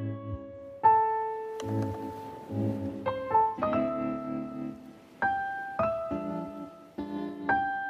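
Background piano music: a gentle melody of single struck notes over soft repeated chords.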